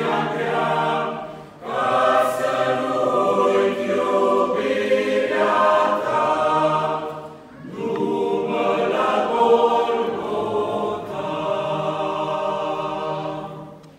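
Mixed choir of men's and women's voices singing a Romanian hymn in sustained phrases, with short breaths about a second and a half in and near eight seconds in; the last phrase fades away at the end.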